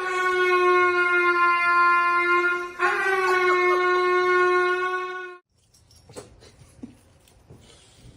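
Two long, loud, steady horn blasts on one fixed pitch. The second follows straight on from the first about three seconds in, and the sound stops sharply after about five and a half seconds.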